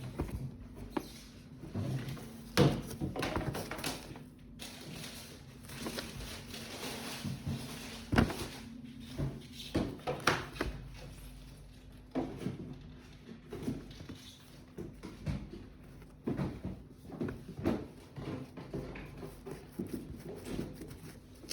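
Sneakers and their packaging being handled: irregular light knocks, taps and rustling, a few sharper knocks standing out.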